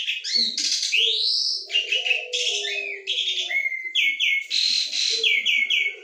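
Asian pied starling singing a busy, chattering song of varied sounds: loud whistles, rising sweeps and quick runs of repeated notes, over a lower warbling line.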